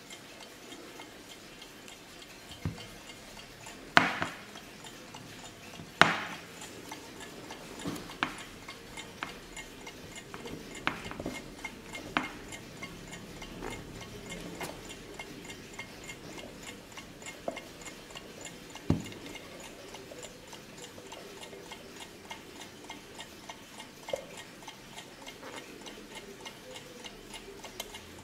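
Junghans braille alarm clock ticking steadily, with a dozen or so louder, irregular clicks and knocks over the ticking, the sharpest about four and six seconds in.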